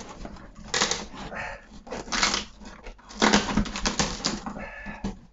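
Cardboard shipping box being opened by hand: scraping and tearing of cardboard and tape, with rustling packing paper, in several irregular bursts. The longest burst comes a little past halfway.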